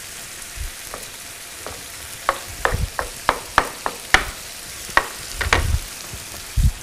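Chef's knife chopping mozzarella into small cubes on a wooden cutting board: about a dozen sharp, irregular knocks of the blade on the board. Under them, a steady sizzle of food frying in pans.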